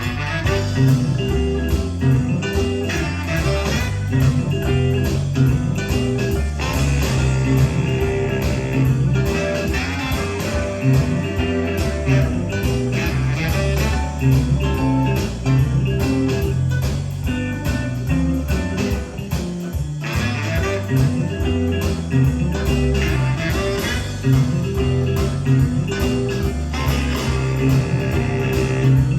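Blues band recording with guitar over a steady beat, played back from cassette tape on a Nakamichi 680 deck through loudspeakers.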